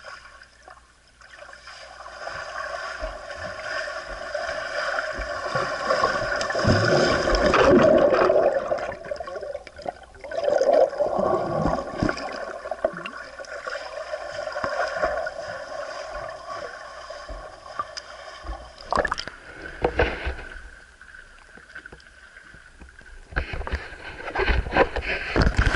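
Swimming pool heard underwater: a steady muffled hum with rushing and bubbling water, loudest about seven to eight seconds in and again at about ten seconds as a swimmer plunges in amid a plume of bubbles. Near the end, close splashing and lapping at the water's surface.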